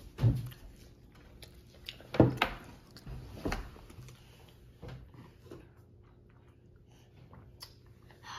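Handling noise on a table: a few dull knocks and clunks as a plastic drink cup and other things are moved about. The loudest knocks come in the first few seconds, followed by only faint small clicks.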